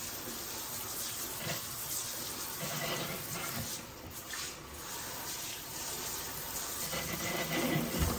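Pull-down kitchen faucet running steadily, its spray splashing into a sink as hands rinse peeled eggs and shell under the stream.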